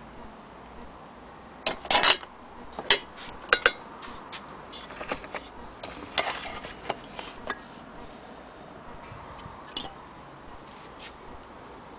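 Brass and glass oil-lamp parts clinking and knocking against each other as they are handled: a few sharp knocks about two seconds in, then a scatter of lighter clinks.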